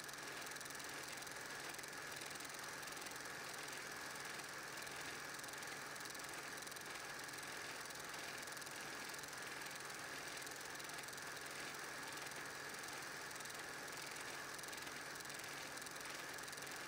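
8mm film projector running: a steady mechanical whirr and rattle with hiss and a low hum underneath.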